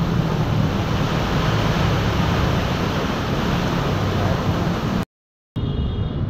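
Heavy rain pouring, with traffic running on the wet road below as a low hum under the rain. Near the end the sound cuts out for about half a second and comes back duller.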